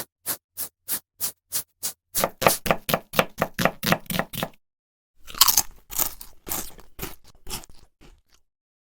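Recorded crunching sound effect from a sound-effects app. It opens with evenly spaced crunches about three a second, then turns into faster, denser crunching like chewing. After a short break comes a second run of crunching that grows fainter towards the end.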